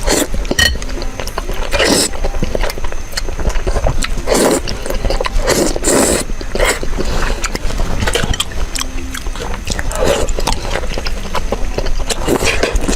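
Someone eating zhajiangmian noodles close to the microphone: wet chewing and mouth noises with louder bursts every second or two.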